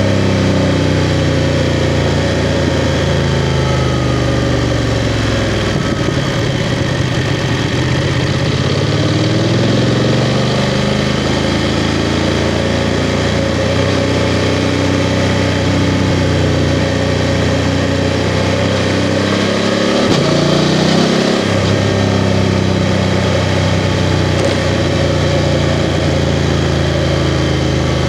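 BMW F 750 GS parallel-twin engine running under way, its revs dropping and climbing back several times as the rider eases off and opens the throttle again.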